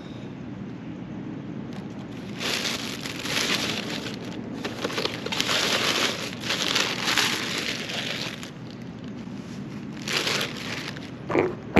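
A paper bag rustling and crinkling in several bursts as it is rummaged through, with a short knock near the end.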